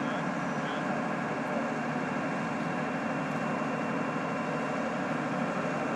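Heavy machinery engine running steadily.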